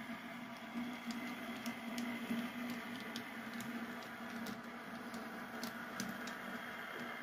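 H0 scale model diesel switcher shoving a cut of freight cars along the track: a steady low hum, with irregular light clicks as the wheels pass over rail joints and turnouts.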